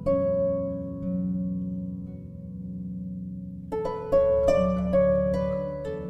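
Gentle instrumental background music: a plucked note rings out at the start over held low tones, then a run of plucked notes sounds a little before the end.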